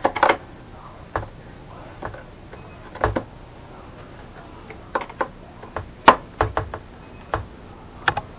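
Irregular light clicks and taps of a hand tool working the screws out of a Husqvarna chainsaw's plastic starter cover. They are sparse at first and come more often in the second half.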